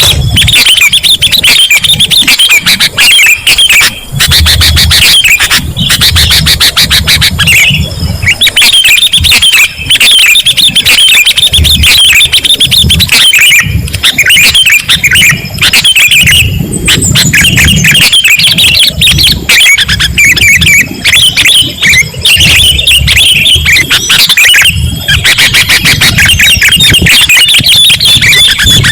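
Sooty-headed bulbul (kutilang) song, loud and nearly unbroken, a dense run of quick chirping and chattering notes.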